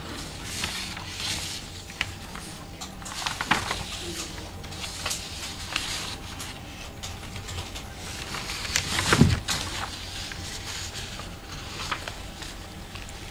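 Room sound of a large debating chamber as people move about in it: scattered clicks, knocks and shuffling over a faint background noise, with one louder knock about nine seconds in.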